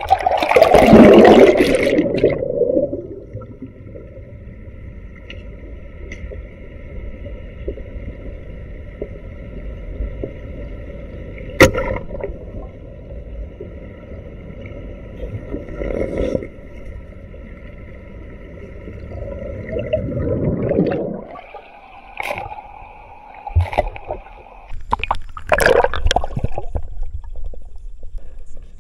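Water splashing as the camera breaks the surface, then muffled underwater churning with a faint steady whine and two sharp clicks. More splashing and churning follows about twenty seconds in and again near the end.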